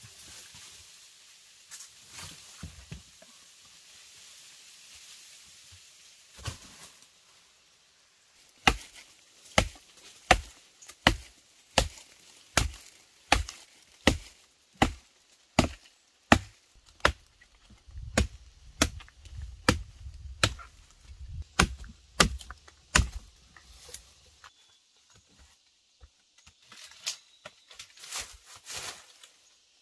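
Wood being chopped, a steady run of about twenty strokes roughly one every 0.7 seconds, starting after a quiet first third. A few softer chops follow near the end.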